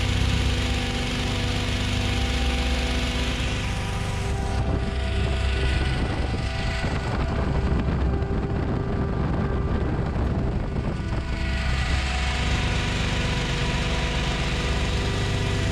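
Engine-driven hot-air balloon inflator fan running steadily at cold inflation, its engine drone under a rush of blown air. The rushing air fades for several seconds mid-way, then comes back.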